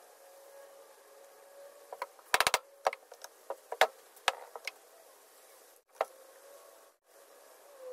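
Wooden table parts knocking and clacking together as curved pieces are handled and fitted into the legs of a table base: a quick cluster of sharp knocks about two and a half seconds in, then single clicks and knocks over the next two seconds and one more about six seconds in, over a faint steady hum.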